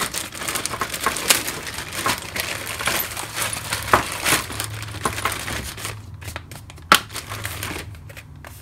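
Thin plastic bags crinkling and rustling as bagged small parts are handled, the crackle thinning out in the last few seconds, with one sharp click about seven seconds in.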